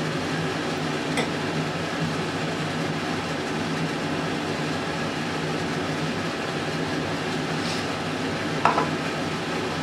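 Steady background hiss with a low hum. Near the end a drinking glass gives a short knock with a brief ring as it is handled, and there is a faint click about a second in.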